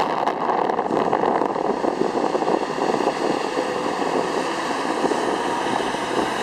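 Motorboat engine running steadily at speed, with the rush of water and spray from the wake.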